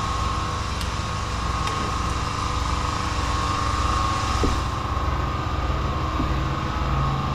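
Steady machine hum with a faint whine over a low, evenly pulsing rumble.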